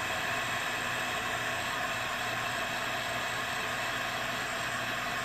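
Heat gun running, its fan blowing a steady rush of air with a faint low motor hum underneath.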